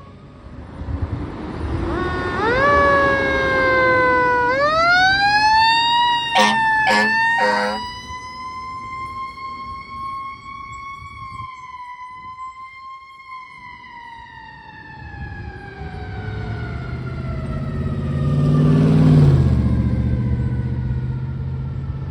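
Fire engine siren winding up in pitch, cut by three short blasts of the horn. The siren then slowly winds down while the truck's diesel engine rumbles past, loudest near the end.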